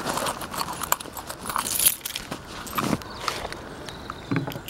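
Gloved hands opening a cinched drawstring stem bag on a bicycle's handlebars: fabric rustling and scuffing, with a string of small irregular clicks from the handling.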